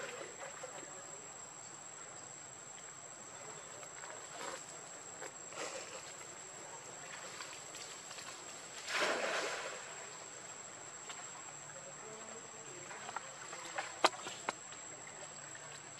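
Steady high-pitched drone of insects, with the water of a pool splashing as macaques swim through it: one louder splash about nine seconds in, and a few sharp clicks near the end.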